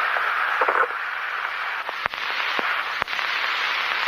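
Radio communications channel hiss and static from the Apollo 1 spacecraft recording, with a brief pitched burst near the start and three sharp clicks later on.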